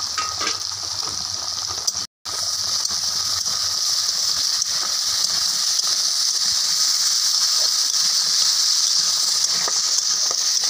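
Chopped green mango sizzling steadily in mustard oil in a steel kadai, with a brief cut-out about two seconds in.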